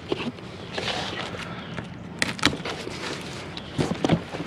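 Handling noise as a heavy container of scrap is lifted and moved: several sharp knocks and clatters over a steady outdoor hiss, the loudest about two and a half seconds in and near the end.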